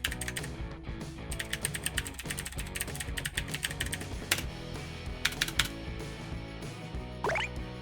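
Keys typed on a cheap gaming keyboard: a quick run of clicks for about three seconds, then a few single keystrokes, over background music.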